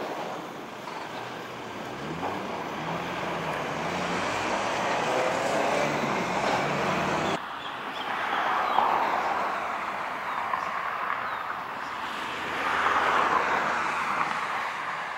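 Diesel locomotive approaching with a passenger train: a steady engine drone with rolling noise from the track. The sound breaks off abruptly about seven seconds in and resumes, swelling twice.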